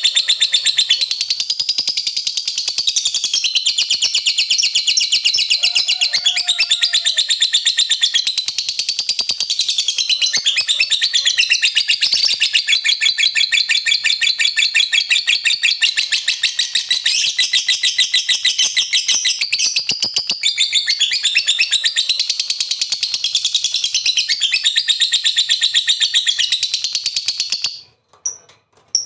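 A lovebird's long, unbroken 'ngekek' chatter: a very fast, high-pitched rattling trill that keeps going and cuts off abruptly about a second before the end.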